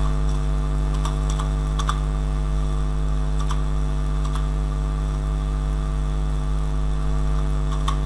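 A few scattered computer keyboard keystrokes, single clicks several seconds apart, over a steady electrical mains hum that is the loudest thing throughout.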